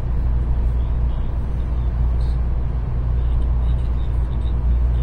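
Steady low rumble of a Shinkansen train, with a few faint light ticks here and there.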